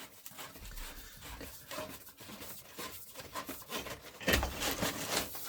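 Taped threaded pipe end being screwed by hand into a sump pump outlet: scattered small scrapes and clicks of the threads and handling, with a louder knock about four seconds in.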